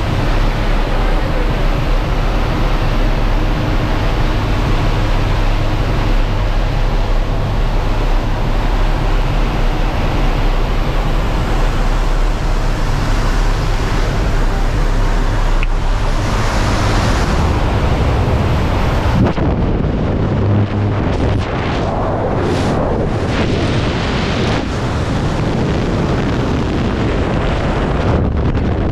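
Strong wind rushing over the microphone, a continuous loud roar that turns gustier and more uneven about two-thirds of the way in.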